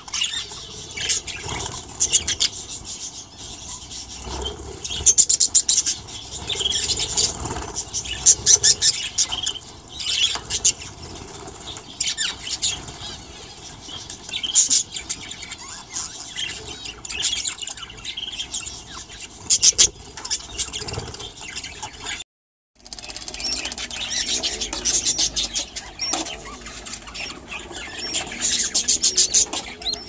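Budgerigars chattering: rapid high chirps, warbles and squawks. The sound cuts out briefly about three-quarters of the way through.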